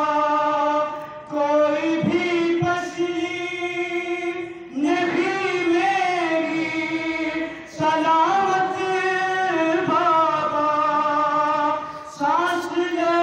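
A man singing a noha, a Shia mourning lament, into a microphone without instruments: a single chanted voice holding long, wavering notes, with short breaks between phrases.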